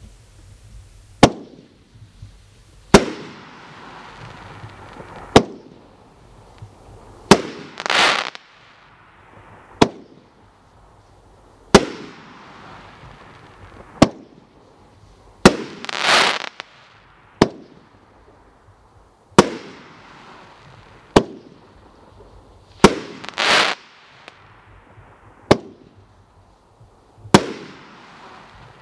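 World Class 'Return to Glory' firework cake firing its aerial shots one at a time, a sharp bang about every two seconds, each followed by a fading hiss. Three times a longer, noisier burst lasts about a second.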